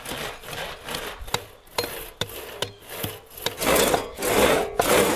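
Two-man crosscut saw cutting through a log, its strokes coming loud and even about twice a second from about three and a half seconds in. Before that, quieter scraping of wood with a few sharp knocks.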